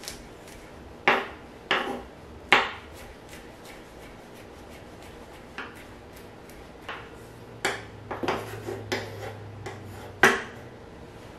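Chef's knife mincing a garlic clove on a wooden cutting board: irregular sharp knocks of the blade on the board, with a quick run of chops about eight seconds in.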